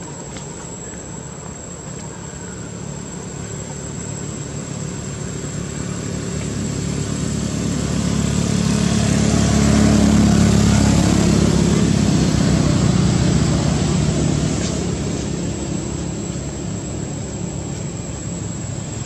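Engine of a passing motor vehicle: a low hum that swells to a peak about ten seconds in and fades away again.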